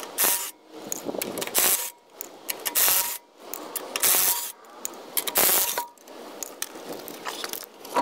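Cordless impact driver hammering a socket on a car's lug nuts, in about six short, rattling bursts, one nut after another, as the nuts are loosened to take a rear wheel off.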